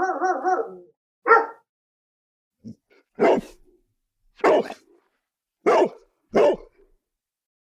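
Dog barking: about five short single barks, roughly a second apart, after a brief wavering, warbling call at the start.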